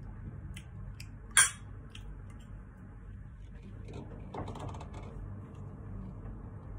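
Metal spoon tapping and scraping on a ceramic plate while eating, with one sharp clink about a second and a half in and a few fainter ticks around it.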